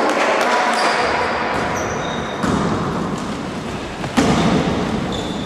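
Basketball bouncing on a wooden gym floor and players running in a large hall, with a louder thud about four seconds in and a few short high squeaks.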